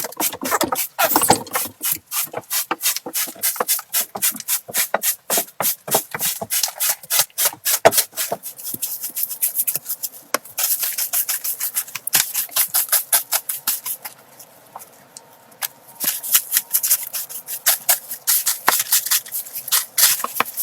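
Rapid, repeated scraping strokes, about four a second, with a short pause about two-thirds of the way through before they resume.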